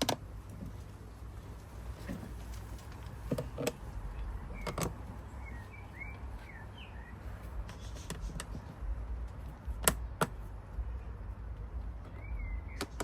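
Scattered sharp clicks and knocks of tools and parts being handled during reassembly of an electric scooter, with a few short high chirps and a low steady hum underneath.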